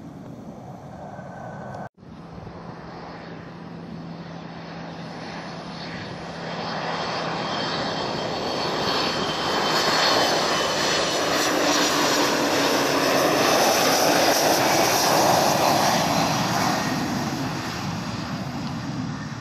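Jet airliner's engines passing: after a brief dropout about two seconds in, the engine noise with a high whine builds over several seconds, is loudest in the second half, and eases off near the end.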